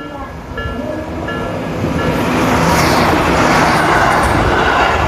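Japanese level-crossing warning bell ringing in a steady repeating ding. About two seconds in, an electric commuter train passes close by, and its running noise swells loud over the bell and peaks near the middle.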